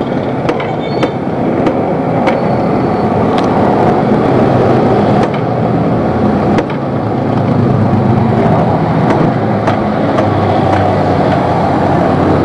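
A motorcycle engine running steadily at idle, with a few light clicks over it.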